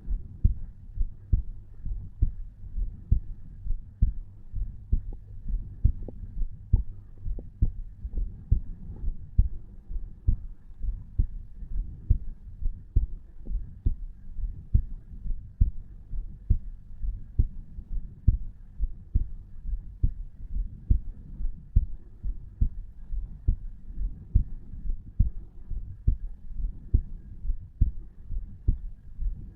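Human heartbeat of a resting 34-year-old man, heard at the tricuspid valve area, beating steadily at about 60 to 70 beats a minute over a low background hum.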